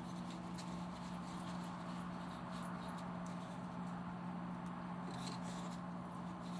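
Faint scrapes and small clicks of a stiff-fitting rod being worked by hand through drilled holes in stacked wooden cutouts, over a steady low hum.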